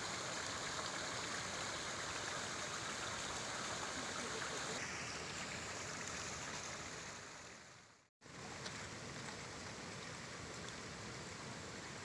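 Steady rush of running water, with no distinct splashes. It fades out for a moment about eight seconds in, then returns a little quieter.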